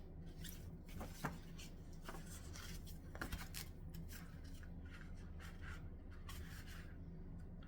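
Faint rustling and small clicks of things being handled, over a low steady hum. The handling noises die down near the end.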